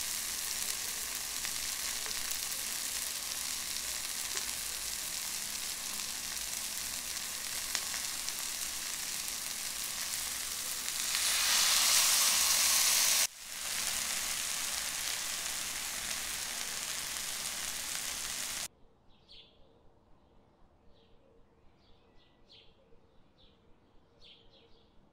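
Prawn masala frying and sizzling in a pan while it is stirred with a spatula; the sizzle gets louder for a couple of seconds near the middle. About three-quarters through, the sizzle cuts off suddenly, leaving faint, scattered bird chirps.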